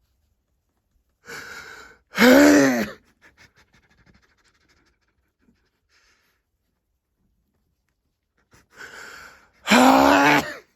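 A person sneezing twice, about seven seconds apart, each time with a gasping intake of breath and then a loud voiced burst whose pitch rises and falls. The sneezes are set off by tickling the nose with a tissue, and they are odd enough to be hard to recognise as sneezes.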